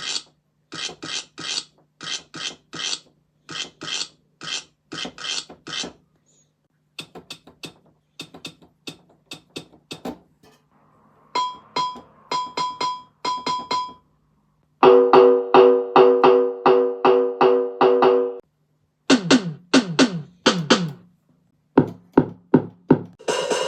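A run of short electronic sound effects, each played several times in quick succession before the next begins: hissy hits, then clicks, then high beeps, then pitched synth notes, then falling zaps, then low thumps.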